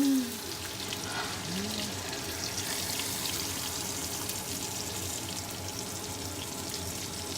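Chicken sizzling steadily in hot avocado oil in a pan, a constant hiss flecked with fine crackles.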